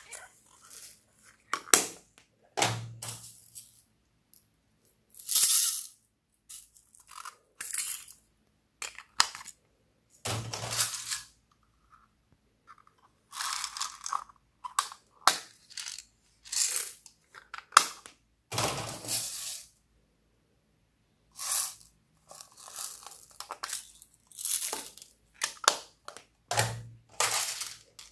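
Small plastic containers being snapped open and tipped out, foam beads and sequins spilling into a glass dish of slime. The sound is a run of separate clicks, rattles and rustles, a few with a dull knock, with short silences between them.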